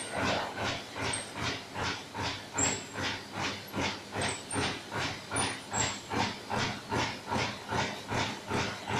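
Four-colour flexo printing and die-cutting machine for paper cup blanks running at speed. It makes an even rhythm of hissing strokes, about two and a half a second, as the die-cutting punch cycles.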